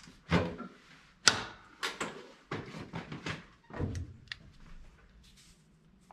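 Thumps and knocks of someone getting into and about the military truck's cab, the loudest a sharp bang about a second in, with a cluster of knocks in the middle, dying down to a few light clicks near the end.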